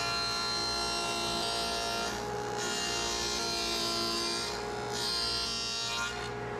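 Table saw running with a dado stack, cutting grooves for the drawer bottoms in half-inch Baltic birch drawer parts. The motor's steady whine goes on throughout, and the cutting hiss rises over it in three passes, with short pauses about two seconds and four and a half seconds in.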